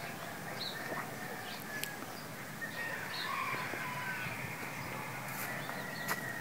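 Birds calling at daybreak: scattered short chirps and whistled notes, with a faint steady high tone underneath.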